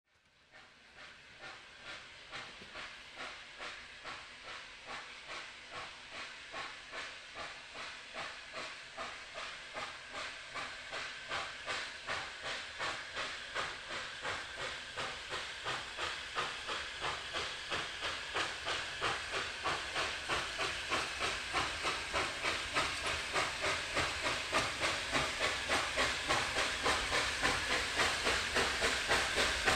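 Hunslet Austerity 0-6-0 saddle-tank steam locomotive working a train, its exhaust chuffing in a steady rhythm of about one and a half beats a second. The beats fade in at the start and grow steadily louder as the engine approaches.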